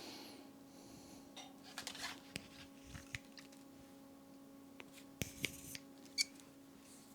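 Scattered small clicks and snips of hand work on thin wire, cutting and handling stripped Ethernet-cable wire for ground leads, the sharpest click about six seconds in, over a steady low hum.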